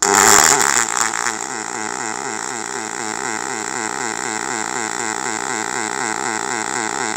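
Pulsed MIG welding arc from an OTC Daihen Welbee in DC Wave Pulse mode, welding aluminium with 4043 wire at about 100 amps with the wave frequency set to 3 Hz. The arc strikes suddenly, is loudest in the first second, then runs steadily with an even, repeating rise-and-fall pulse.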